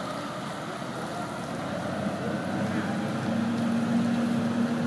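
Large boat-lift forklift's engine running, with a steady hum that grows louder from about two seconds in.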